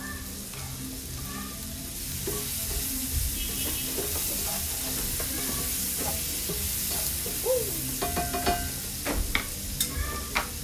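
Onions and garlic sizzling in butter in a frying pan while a slotted spatula stirs and scrapes them; the sizzle grows louder about two seconds in. Near the end come a few sharp clicks and knocks as the spatula and knife are set down on a wooden cutting board.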